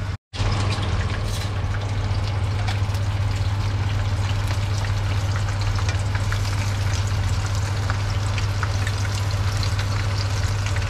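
Battered tempura pieces deep-frying in a pan of oil, a dense steady crackle with many small pops. A steady low hum runs underneath, and there is a brief dropout right at the start.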